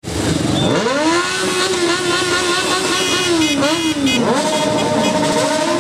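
Several motorcycle engines revving up and then running steadily as a group of bikes rides slowly past. The pitch rises in the first second, settles, and dips and climbs again about four seconds in, with a few short high beeps shortly before that.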